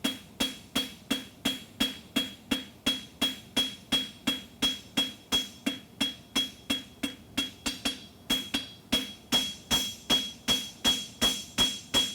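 Farrier's hammer striking a steel horseshoe on the anvil in an even rhythm of about three blows a second. Each blow rings with the same high tone. The hammering is forging the base of the toe clip.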